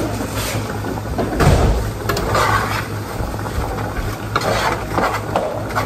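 Off-camera kitchen work: a steady low hum with scattered knocks, clatter and brief rushing noises.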